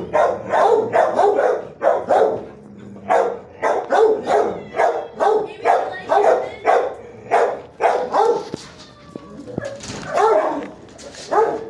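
Shelter dogs in kennels barking over and over, about two barks a second, with a short lull past the middle.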